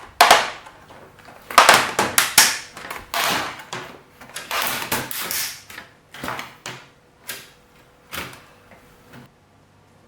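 Plastic bottom cover of a Lenovo V155-15 laptop being pried off the body with a plastic opener: a run of sharp clicks and scraping as the retaining clips come loose, dying away about nine seconds in.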